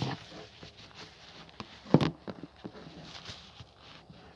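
Handling noise from a phone camera being moved and turned round: scuffs and small knocks, with one sharper thump about two seconds in.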